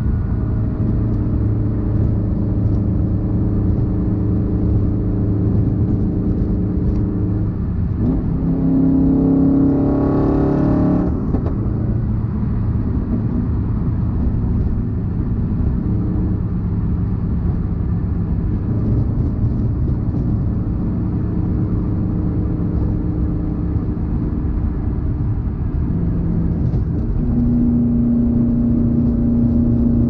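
2004 Subaru WRX STi's turbocharged 2.5-litre flat-four engine and exhaust, heard from inside the cabin while cruising, with a steady drone. About eight seconds in the revs climb for some three seconds, then drop away sharply. Near the end the engine settles into a steadier, stronger note.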